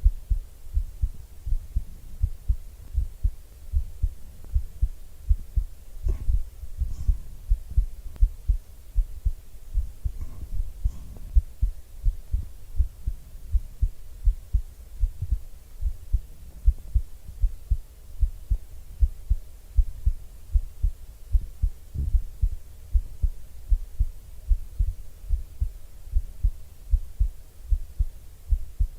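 A person's heartbeat heard up close through a microphone: steady, evenly spaced low thumps, with a couple of faint brief noises about six and ten seconds in.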